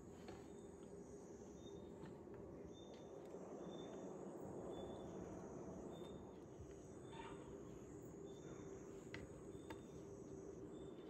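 Insects chirping in the garden: a high, steady trill that starts and stops in long stretches, with a short high chirp repeating a little faster than once a second. The sound is faint, with a few light clicks among it.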